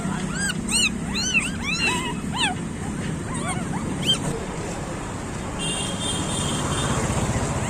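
Street-dog puppies whimpering and yelping: a quick run of short, rising-and-falling whines over the first four seconds, then fewer. A brief steady high tone sounds about six seconds in, over a constant low background hum.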